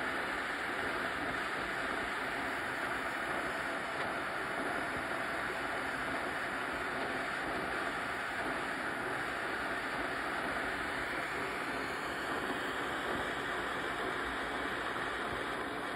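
Gas torch flame burning with a steady hiss as it heats a stainless steel joint for silver soldering.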